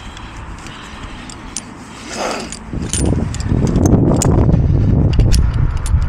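Metal carabiners clinking and clicking as they are clipped onto steel bolt hangers, with rope rustling. From about three seconds in, a loud low rumble of handling or wind noise on the microphone runs under the clicks.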